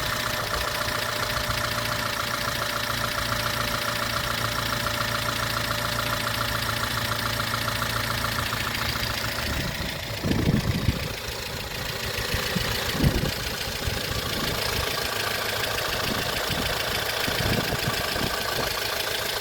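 2006 Honda Element's K24A4 2.4-litre four-cylinder engine idling steadily with a rapid ticking, a noise the owner finds louder since a valve adjustment. A few low bumps come about halfway through.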